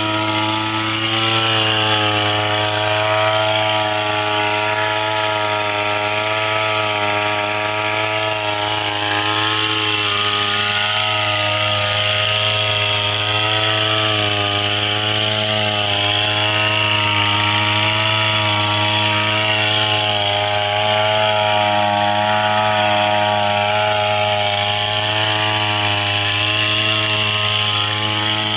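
Small engine of a motorized pesticide sprayer running steadily at constant throttle, its pitch wavering slightly.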